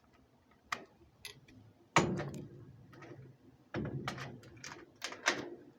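A series of sharp knocks and thumps: single knocks in the first second or so, one loud bang with a short ring-out about two seconds in, then a quick run of several knocks near the end.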